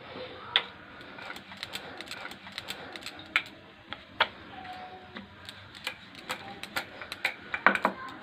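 Wooden rolling pin knocking and clicking on a marble rolling board as maize-flour dough is rolled out: irregular light clicks and taps, with a few louder ones near the end.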